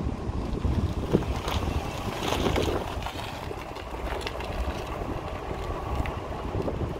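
Wind buffeting the microphone over the low rumble of a car driving along a concrete runway.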